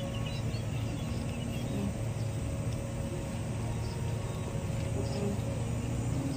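Steady low rumble of distant road traffic in a city street, unbroken throughout, with a few faint high chirps above it.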